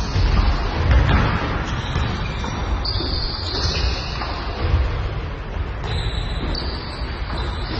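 Basketball practice game in a gym: sneakers squeaking on the court floor in short, high squeals, several times, over dribbled ball bounces and players' footfalls.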